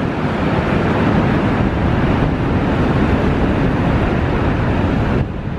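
Steady rush of Niagara Falls' plunging water heard up close, mixed with wind buffeting the microphone. It cuts off suddenly near the end.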